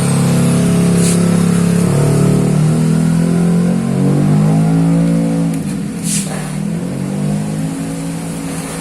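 Bored-out Honda Vario 125 scooter's single-cylinder engine, fitted with a 61 mm Moto1 piston kit, running and being revved. The pitch holds steady, drops about two seconds in, then climbs and shifts as the throttle is worked, and eases off near the end.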